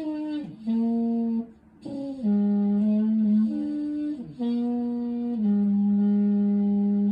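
Muted trumpet playing a slow, low phrase of held notes, several bending down in pitch as they end, closing on a long held low note.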